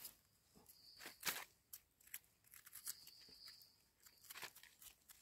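Faint scratching and crunching of soil and dry leaf litter as a young, egg-stage termite mushroom is worked out of the ground by hand, with a few short sharp clicks.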